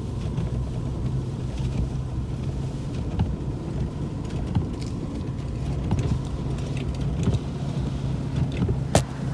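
Ford F-350 pickup's engine running steadily under load while pushing snow with a V-plow, with scattered light clicks and rattles and one sharp click near the end.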